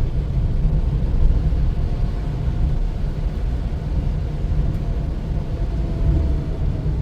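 Steady low rumble of a moving vehicle on the road, engine and road noise mixed with buffeting on the microphone.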